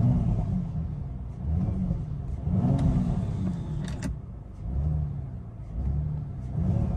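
Audi RS5's 2.9-litre twin-turbo V6 revved in a series of short blips while parked, with the drive select in dynamic mode, heard from inside the cabin. The exhaust note stays subdued.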